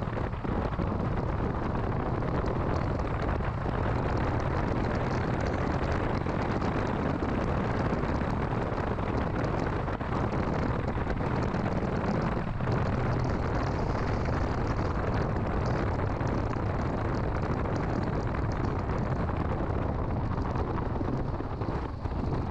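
2006 Mini Cooper S being driven: steady engine hum and road noise, with wind rushing over the microphone.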